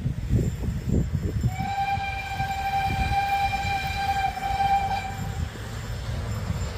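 A narrow-gauge steam locomotive's whistle, one long steady blast of about four seconds starting about a second and a half in. A low rumble runs underneath.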